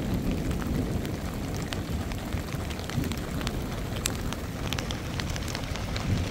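Rain falling, with scattered drops ticking close by, over a low wind rumble on the microphone.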